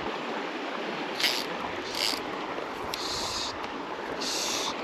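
Small creek running steadily, with a few short, high hissing swishes about a second apart.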